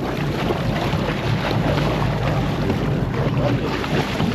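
Steady wind buffeting the microphone aboard a boat at sea: a constant rushing noise with no distinct events.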